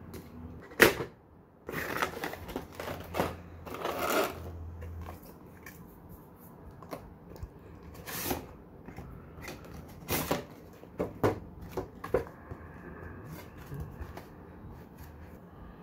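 Handling of a cardboard figure box and its clear plastic blister tray: a sharp click about a second in, then rustling and scraping of cardboard and plastic with scattered knocks and taps.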